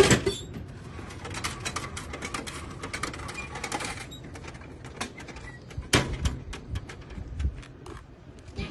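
Drinks vending machine dispensing a can: a loud clunk as the can drops into the tray just after the button press, then clicking and rattling as the flap of the collection tray is pushed open and the can is taken out, with another sharp knock about six seconds in.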